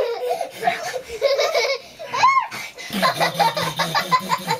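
Children laughing and squealing while play-wrestling, with a short high squeal that rises and falls about halfway through. A deeper voice laughs in short pulses near the end.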